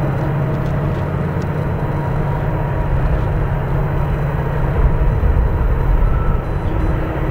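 Steady low engine rumble with a constant low hum from an unseen vehicle.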